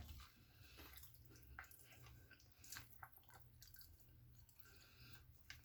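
Faint chewing and mouth sounds of someone eating, a few soft irregular smacks over near silence.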